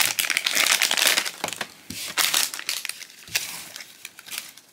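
Foil blind-bag pouch crinkling as it is torn open and handled, dense for about the first second and a half, then thinning to scattered, quieter crinkles.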